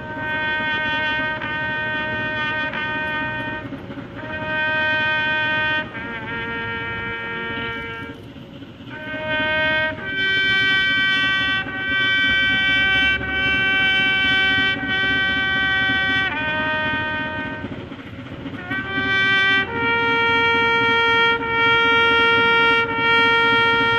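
A solo bugle played as a tribute call: slow phrases of long held notes with short breaks between them. The longest notes come a little before halfway and in the last few seconds.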